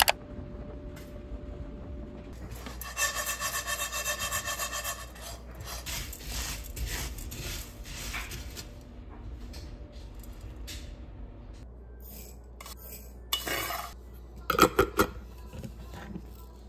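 Pearl barley being dry-roasted in a frying pan, the grains stirred and scraped with a spatula in repeated rasping strokes. A few sharp knocks come near the end.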